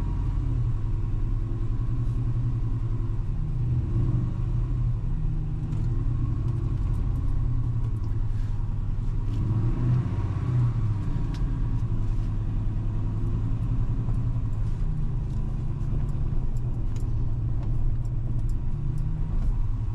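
2004 Ford Mustang Mach 1's 4.6-litre four-valve V8 running at low revs as the car creeps along slowly, heard from inside the cabin, with a brief rise in engine note about halfway through.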